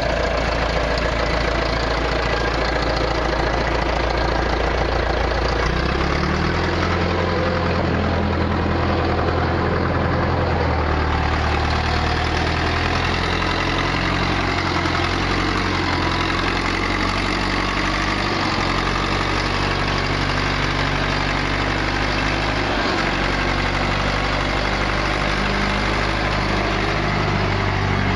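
Case 780 backhoe's turbocharged diesel engine running steadily, its speed shifting up and down a few times as the machine is worked.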